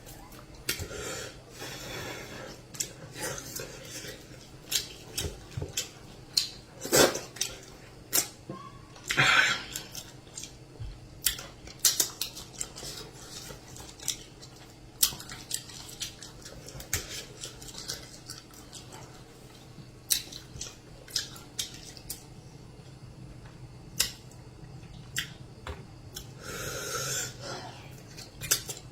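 Eating at a table: many short clinks and taps against dishes, scattered irregularly, with a few longer chewing or slurping noises in between.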